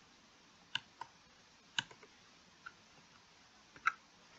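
Several faint, sharp clicks of a computer mouse at uneven intervals, the loudest near the end, over a faint hiss.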